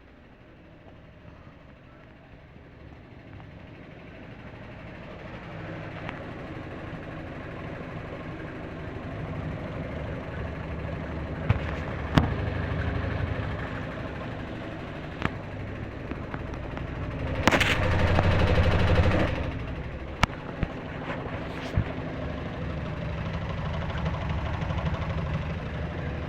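Washing machine spinning up to high speed: a low rumble and hum that grows louder over the first ten seconds, with several sharp bangs and a loud, harsh rattling stretch of about two seconds two-thirds of the way through.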